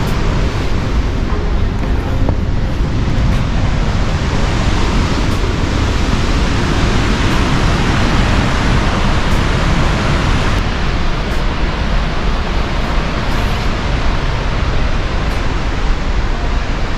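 Steady rushing roar of White River Falls, a 90-foot waterfall.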